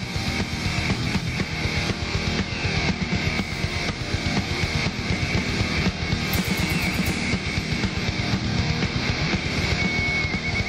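Live metal band playing an instrumental passage: distorted electric guitars through Marshall stacks over fast, dense drumming. Near the end a high guitar note is held with a wavering pitch.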